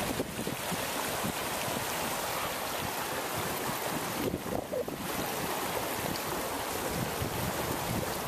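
Steady rush of flowing river water, mixed with wind buffeting the microphone.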